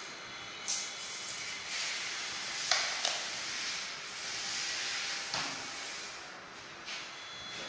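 Steady hiss of room noise, broken by a few sharp knocks and clatters as tools and a metal bracket are handled. The loudest knock comes about a third of the way in, with another close after it.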